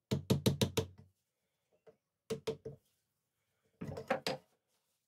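Hammer knocking on an old wooden-handled screwdriver clamped in a steel bench vise, driving the handle off the blade: a quick run of about five sharp taps, three more a little over a second later, then another short cluster of knocks near the end.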